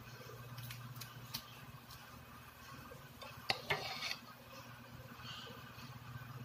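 Light clinks and knocks of plates and utensils on a table as food is handled, with the loudest cluster a little past the middle, over a steady low hum.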